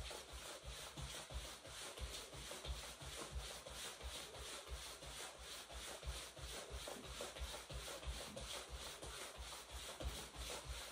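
Jogging in place: a steady quick rhythm of soft footfall thuds and the swish of a zip-up jacket's fabric rubbing as the arms pump.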